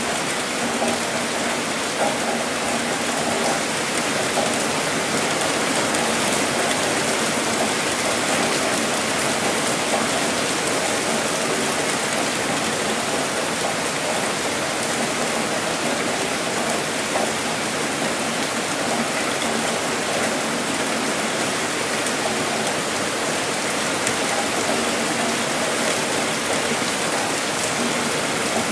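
Steady rainfall: an even, unbroken hiss of rain falling on surfaces.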